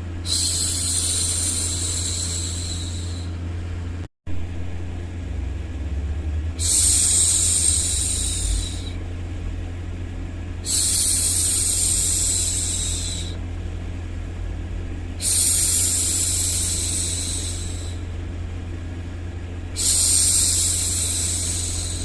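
A woman's voice going "shhh" to hush a baby, five long shushes of about three seconds each, one every four to five seconds, over a steady low white-noise hum. The sound cuts out briefly about four seconds in.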